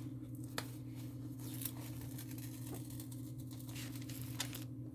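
Soft rustling and crinkling of a diamond painting canvas and its plastic cover being handled, with a few light clicks, over a steady low hum.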